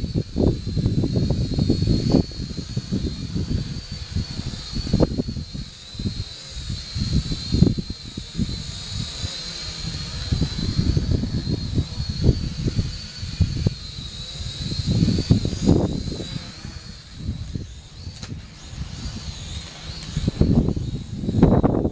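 Syma X5C quadcopter's small brushed motors whining at a high pitch that wavers up and down with the throttle. Strong gusting wind buffets the microphone and rumbles louder than the motors.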